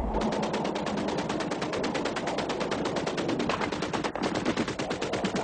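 Rapid automatic gunfire: one long burst at more than ten shots a second, with a brief break about four seconds in.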